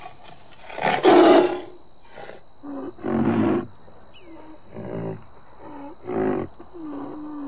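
A large wild animal giving a series of five rough roaring calls, each under a second long, spaced one to two seconds apart; the first, about a second in, is the loudest.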